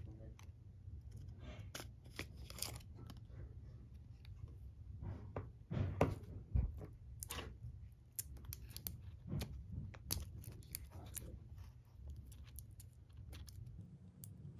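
Foil seal lids being peeled off small plastic gouache paint cups by hand: irregular crinkling and tearing with small plastic clicks, loudest about six seconds in.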